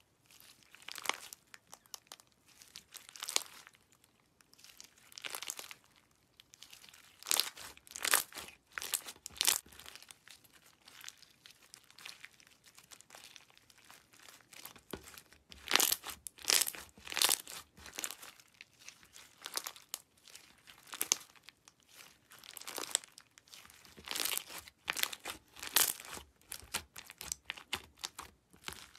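Pink slime with small beads and sliced charms mixed in, stretched, pulled apart and kneaded by hand: irregular bursts of sticky crackling and tearing every second or so.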